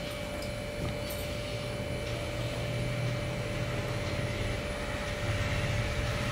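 A steady low hum and hiss with a faint constant high tone running through it, like a fan or appliance in a small room.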